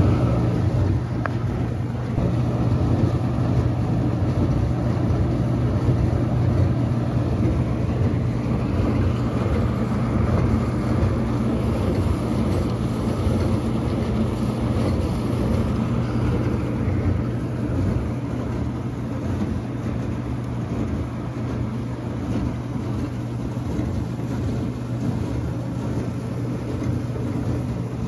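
A 1984 Whirlpool DU3003XL-0 dishwasher running: a steady low motor hum under an even rushing noise, the higher part of which thins out a little past halfway.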